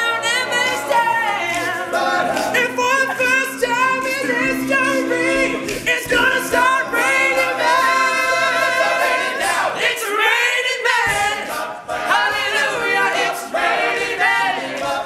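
All-male a cappella group singing an upbeat pop song, several voice parts together with no instruments.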